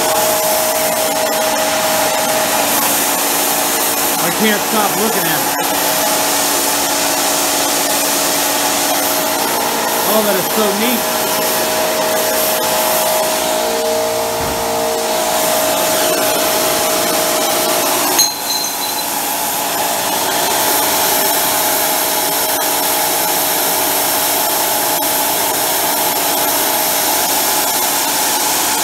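Homemade propane micro jet burner (a turbocharged blow torch) running: a steady, loud rush of air and flame with a steady whine in it, from a high-velocity air jet swirling air and propane through a red-hot combustion can. A sharp click and a brief dip in the sound come about two-thirds of the way through.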